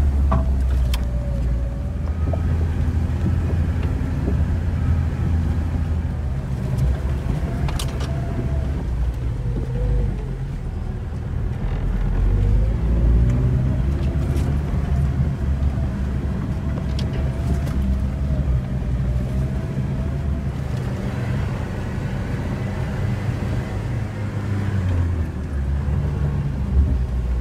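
Jeep 4x4 driving slowly over a rutted, muddy forest track, heard from inside the cabin: a steady low engine and road drone, with a few sharp knocks as the vehicle jolts along.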